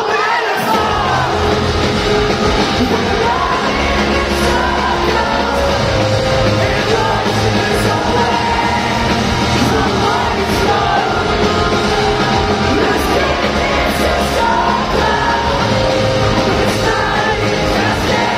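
Live rock band playing loud, a singer's voice over electric bass, drums and guitar. The bass and drums drop out for a moment at the start and come back in under a second.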